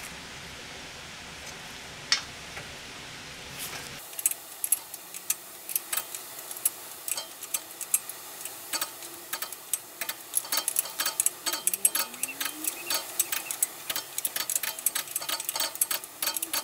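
Ratchet of a torque wrench clicking as cylinder head bolts are tightened. A few separate clicks come first, then from about four seconds in there are long runs of quick ratchet clicks.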